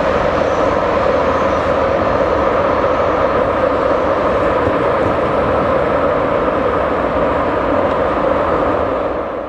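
Freight train rolling past, its wheels running steadily on the rails. The sound fades out quickly at the very end.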